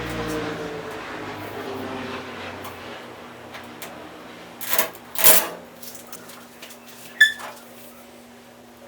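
Handling noises while unboxing a dishwasher: rustling and scraping that fade over the first few seconds, two louder swishes about five seconds in, and a sharp, briefly ringing clink about seven seconds in.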